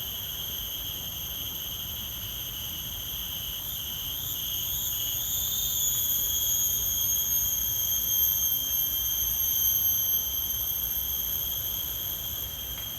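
Forest insects giving a continuous high-pitched drone with no break. It wavers and grows louder about a third of the way in, then eases off slightly near the end.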